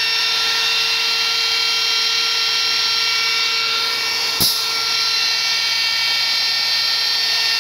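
Electric die grinder with a V-groove router bit running at speed and cutting into a spinning wooden blank on a lathe. It gives a steady high-pitched whine over a hiss of cutting, with one sharp knock about four and a half seconds in.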